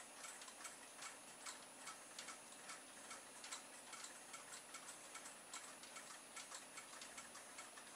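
Faint, irregular ticking of several solar-powered motion toys running together, overlapping at several ticks a second.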